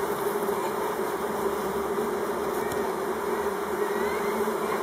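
Many honeybees buzzing at once in a steady, even hum.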